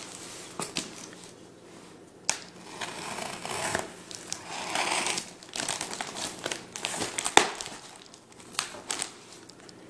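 Utility knife slitting the packing tape along a cardboard box's seam, then the tape crackling and tearing as the cardboard flaps are pulled open. Irregular scrapes and sharp crackles, the loudest snap about seven seconds in.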